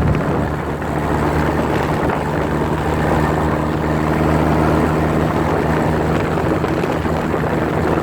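Motor tricycle engine running steadily under way, its hum held at an even pitch, with wind rushing over the microphone.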